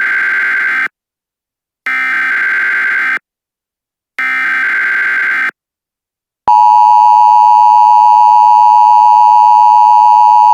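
Emergency Alert System SAME header: three buzzing bursts of digital data, each over a second long, the first already under way, followed about six seconds in by the loud, steady two-tone EAS attention signal. Together they mark the start of a new emergency alert.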